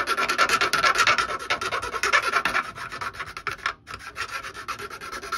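A file rasping quickly back and forth on plastic, smoothing down the stubs left where thick sprue supports were broken off a model car's underbody. The strokes stop briefly about two-thirds of the way through, then carry on more lightly.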